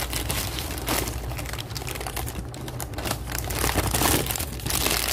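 Burger King Whopper paper wrapper crinkling and rustling as hands unfold it from the burger, in irregular bursts that are loudest about four seconds in.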